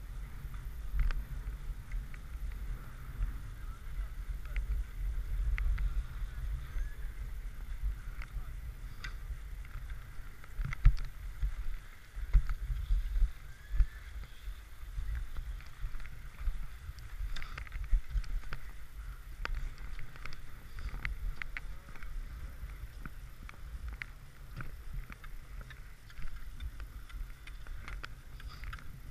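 Skis sliding over packed snow, with wind rumbling on the microphone in uneven gusts and scattered sharp clicks and knocks.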